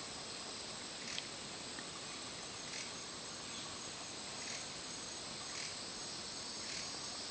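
Steady high-pitched drone of insects in the forest, with short hissing pulses about every one to two seconds.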